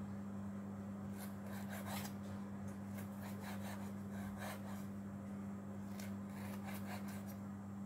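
Kitchen knife slicing a sausage lengthwise on a wooden cutting board: a string of irregular soft cuts and light taps of the blade on the board. A steady low hum runs underneath.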